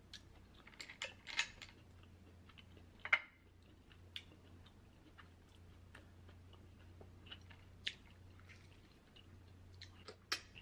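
Quiet eating and table sounds: a few faint, scattered clicks and small smacks from a metal spoon, a hot sauce bottle and the mouth, over a faint low hum.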